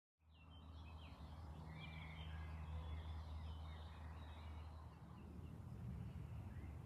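Small birds chirping and twittering in short, varied calls over a steady low rumble. The sound starts abruptly just after the beginning.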